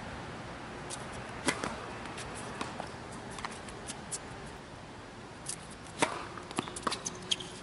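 Tennis serve on an outdoor hard court: a few light taps as the ball is bounced before the serve, then a sharp pop of racket on ball about six seconds in, followed by lighter taps of footwork and the ball.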